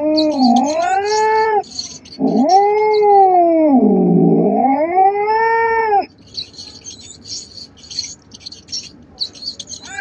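A cat yowling: two long, drawn-out wails that rise and fall in pitch, the second lasting about four seconds. After the second wail stops, about six seconds in, only faint, irregular high chirps remain.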